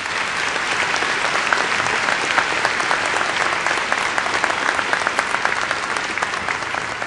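Large audience applauding: a dense patter of many hands clapping, easing off near the end.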